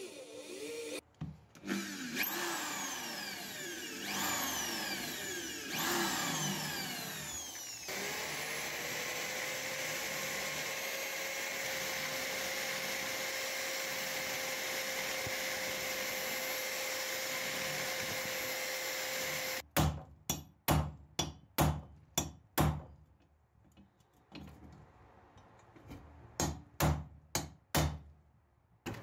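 Electric drill boring into the rusty steel blade of an old masonry trowel to drill out a rivet, its pitch dropping and climbing under load. It then runs at a steady pitch for about twelve seconds with a rounded burr bit grinding at the rivet. After that, for about the last nine seconds, comes a string of about fifteen sharp metal taps.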